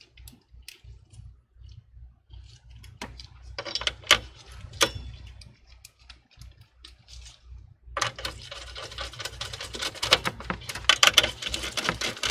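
Light clicks and rustling of gloved hands handling and fitting cable connectors inside a PC tower case: a few sharp clicks a few seconds in, then a denser run of clicking and rattling from about eight seconds on.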